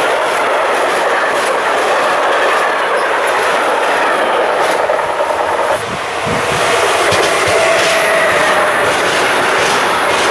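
Intermodal freight trains passing close by on electrified main line: wagons loaded with containers and truck trailers rolling past with steady wheel-on-rail noise and clatter. About six seconds in the sound cuts to a second such train, hauled by a Siemens Vectron electric locomotive, which passes with a few low thuds and a steady tone for a couple of seconds before its wagons roll by.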